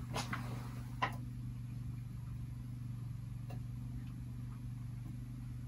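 Wet-stone sharpener's electric motor humming steadily, with a faint regular ticking. Two light clicks about a quarter second and a second in come from the scissor jig and support bar being set against the stone.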